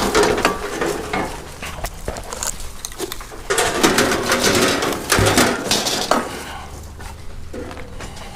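Pieces of scrap metal clanking and rattling against each other as they are tossed onto a growing load, with a heavy thud about five seconds in; the clatter dies down near the end.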